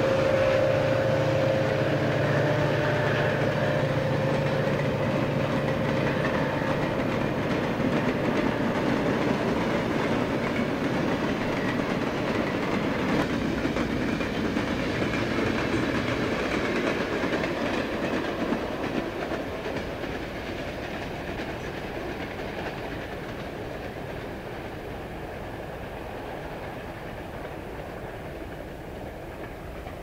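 Grand Trunk Western EMD SD40 diesel locomotives passing, their 16-cylinder turbocharged engines droning steadily for the first several seconds before fading away. A long freight train of cars follows, rolling by on the rails and slowly fading as it recedes.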